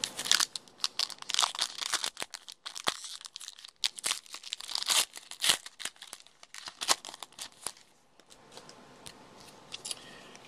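A trading card pack's wrapper being torn open and crumpled by hand: a run of sharp crackling and tearing that dies down to a few faint ticks about eight seconds in.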